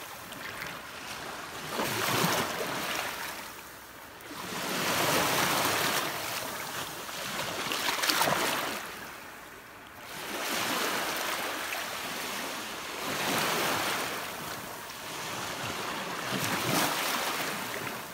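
Small waves washing up the beach in repeated swells, each rising and falling away every few seconds.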